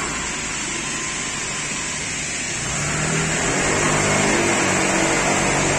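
Honda PCX 150 scooter's single-cylinder engine running, its revs and loudness rising about halfway through as the scooter pulls away.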